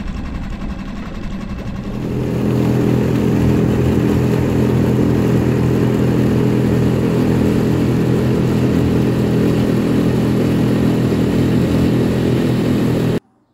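Outboard motor on an aluminium tinny running, opening up about two seconds in and then holding a steady drone at higher throttle. It cuts off suddenly near the end.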